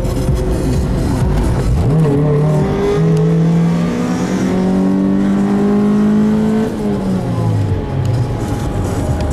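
Car engine accelerating, its pitch climbing steadily for about four seconds, then dropping as the throttle comes off about two-thirds of the way in, over steady road rumble.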